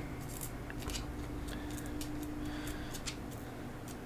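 Irregular small scrapes and clicks of a pry tool working a OnePlus One's battery loose from its strong adhesive, over a faint steady hum.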